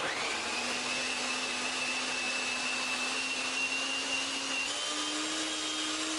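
Electric food chopper (Ravelle 2-in-1 chopper and blender) switching on and running steadily, its blades grinding red chillies and shallots into a paste. Its motor whine steps up a little in pitch about four and a half seconds in.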